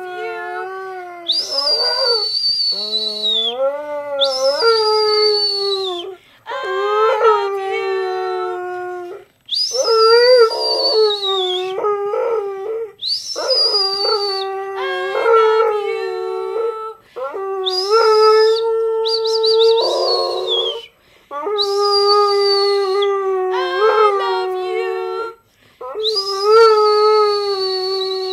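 A dog howling: a string of long, drawn-out howls that rise and fall in pitch, each broken off by a short pause.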